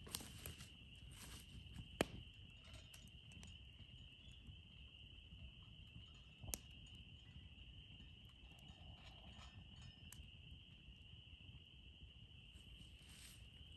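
Faint, steady high-pitched chorus of night-calling animals outdoors, with two sharp clicks about two and six and a half seconds in.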